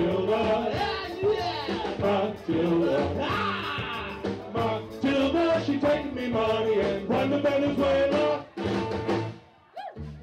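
Live band playing with a drum kit and guitar, with a steady beat. The music drops away about nine and a half seconds in.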